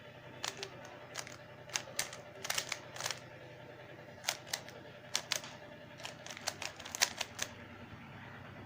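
Plastic 3x3 Rubik's cube being turned by hand: irregular runs of sharp clicks as its layers are twisted and snap into place.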